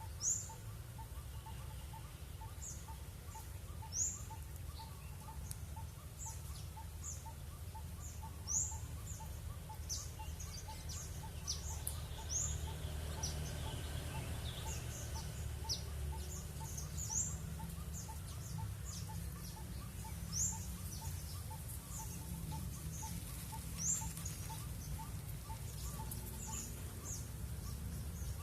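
Small wild birds chirping, with sharp, high, quick chirps repeating irregularly and a louder one every few seconds. A soft lower pip repeats steadily about twice a second, over a low background rumble.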